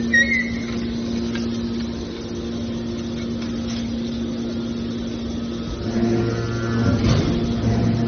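Hydraulic scrap metal baler running with a steady machine hum. About six seconds in the hum deepens and grows louder, with a brief clatter near seven seconds.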